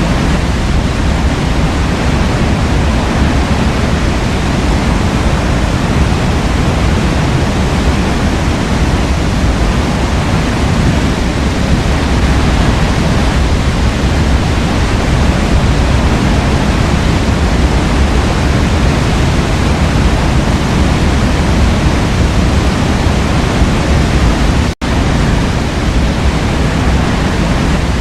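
Waterfall pouring: a loud, steady rush of falling water, heaviest in the low end. The sound cuts out for an instant near the end and comes straight back.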